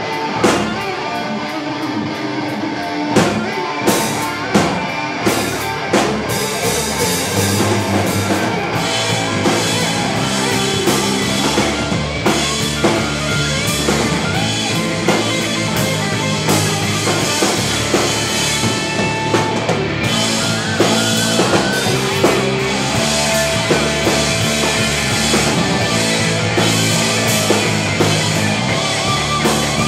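Live rock band playing an instrumental passage: electric guitars over bass and drum kit. A few separate accented hits come in the first seconds before the full band plays steadily from about eight seconds in.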